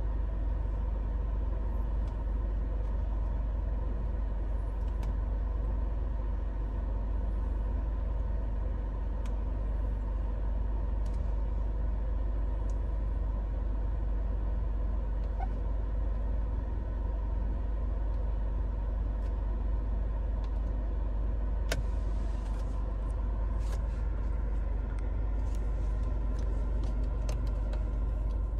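Steady low rumble of the Proton X70's 1.8-litre turbocharged four-cylinder petrol engine idling, heard inside the cabin. There is one sharp click a little past the middle and a run of light clicks near the end as the dashboard buttons are pressed.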